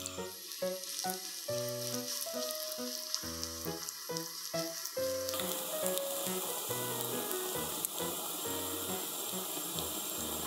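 Food sizzling and frying in oil in a frying pan, the sizzle growing louder about five seconds in, over light background music.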